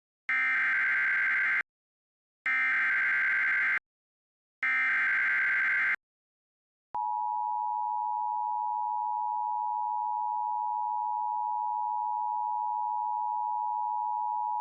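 Emergency Alert System tones: three short bursts of the SAME digital header, each about a second and a half, carrying the coded severe thunderstorm warning, then after a pause the steady two-tone EAS attention signal.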